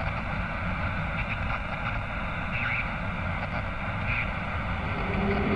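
Steady television static: a dense hiss with a rumble beneath it and faint brief blips now and then. Near the end a low droning tone comes in under it.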